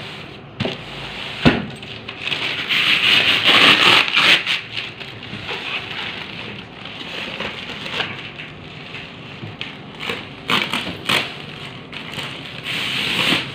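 Clear plastic wrapping film crinkling and rustling as it is pulled and bunched off a cardboard box by hand, with a sharp knock about one and a half seconds in.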